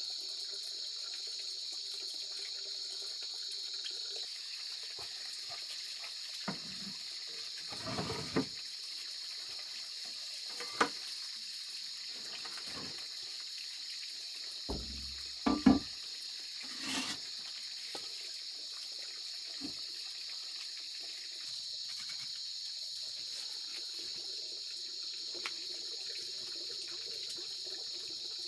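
Kitchen items being handled: a few scattered knocks and clatters, the loudest about halfway through, over a steady high hiss from the surroundings.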